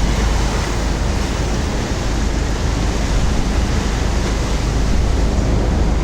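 Steady rush of wind and water with a heavy low rumble.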